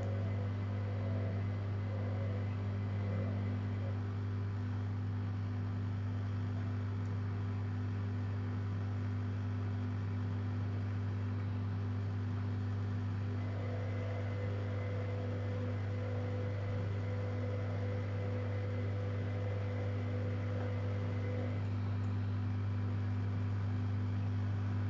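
Zanussi Jetsystem Turbodry ZWD 1000 washer-dryer running with a steady low hum. A fainter higher whine joins about halfway through and drops out near the end.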